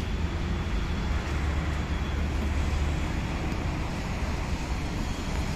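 Steady drone of a radio-controlled Cessna 182 model plane's motor flying low, mixed with low wind rumble on the microphone.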